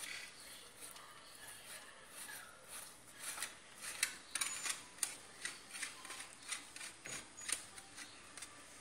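Mozzarella being rubbed on a coarse handheld metal grater: repeated short rasping strokes, about two to three a second, that grow more frequent and louder about three seconds in.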